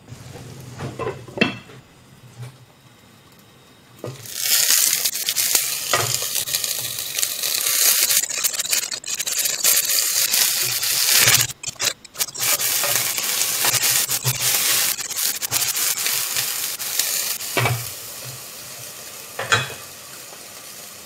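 Tofu-and-besan-flour omelette batter frying in a wok, with a glass lid on the wok. A few clinks of lid and pan come in the first seconds, then loud, steady sizzling from about four seconds in, easing a little near the end.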